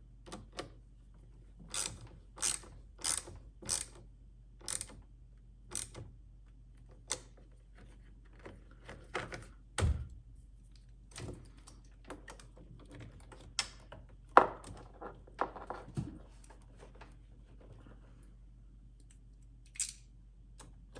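Hand tools clicking and knocking on metal while a truck battery is fitted and its terminals and hold-down are fastened. A run of sharp clicks comes early, with heavier knocks about ten, fourteen and sixteen seconds in.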